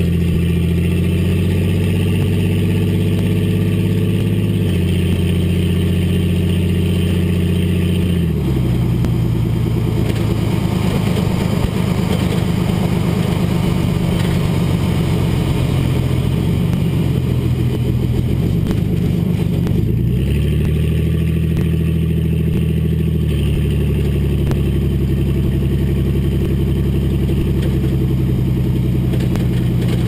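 1999 GMC Sierra 1500's 4.3L V6 running through a Flowmaster Outlaw exhaust as the truck drives, heard close from beneath the rear axle, with road noise underneath. The note holds steady, then changes pitch several times: once about eight seconds in, and again around twenty and twenty-three seconds in.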